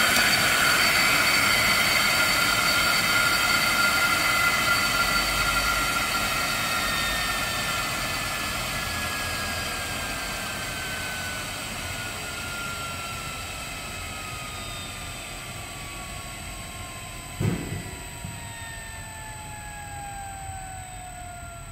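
Electric blower motor on a variable frequency drive winding down on the drive's controlled deceleration ramp after being switched to stop. Its whine and air noise fall steadily in pitch and fade. There is a steady high tone throughout and a single thump about 17 seconds in.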